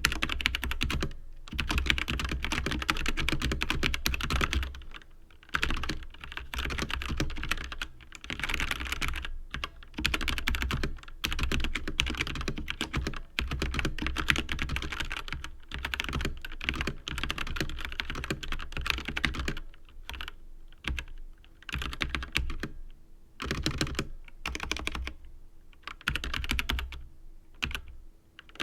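Continuous typing on a Tecware Phantom mechanical keyboard: a dense run of key clacks and bottom-outs in stretches of a few seconds, with brief pauses between them.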